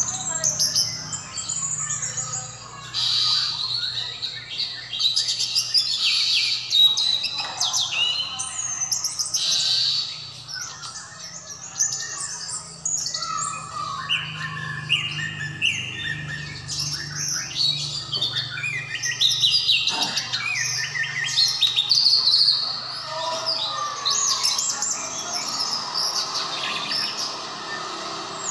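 Caged orange-headed thrush singing a long, varied song of quick chirps, trills and sliding whistles, with only brief pauses.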